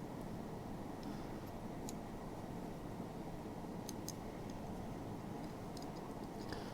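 Faint steady background hum with a few scattered light clicks, small parts being handled.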